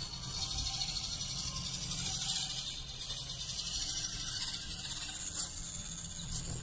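1/18-scale RC crawler truck crawling slowly over dirt: a steady low drone from its electric motor and geartrain under a steady high hiss.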